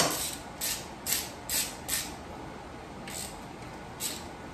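Hand ratchet with an Allen bit turning out the cam chest cover bolts on a Harley-Davidson Milwaukee-Eight 114 engine: about seven short rasps of ratchet clicks, unevenly spaced with a pause in the middle. A sharp snap right at the start is the loudest sound.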